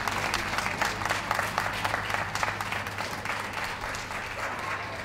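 Ringside audience applauding, many hands clapping at once and dying away toward the end.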